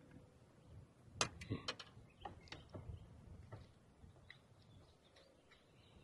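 Faint, irregular ticks and small knocks of a crappie being handled and a jig's hook being worked loose from its mouth. The ticks come thickest in a cluster about a second or two in, then thin out.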